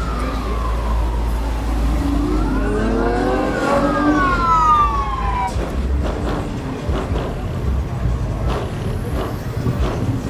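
Emergency siren wailing, its pitch falling, rising and falling again before it stops about five and a half seconds in, over a steady low rumble of traffic. Scattered short knocks follow.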